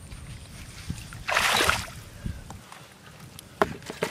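Hands and feet working in shallow muddy water, with faint sloshing and one louder splash about a second and a half in. A single sharp click comes near the end.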